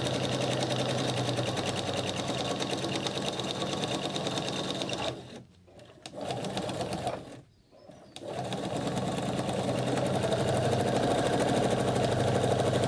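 Electric sewing machine stitching steadily at a fast even rate. It stops briefly twice, about five seconds in and again a couple of seconds later, then runs on.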